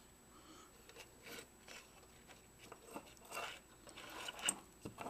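Soft, scattered rustles and light crackly scrapes of hands handling and pulling apart the tangled wires and circuit board of a dismantled Vivitar 2800 flash.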